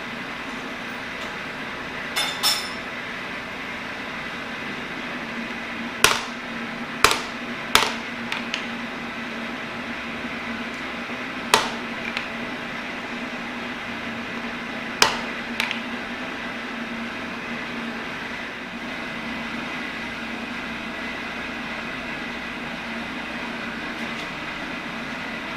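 About seven sharp metallic taps, irregularly spaced, the first two ringing briefly, over steady shop background noise. A low steady machine hum sets in about five seconds in.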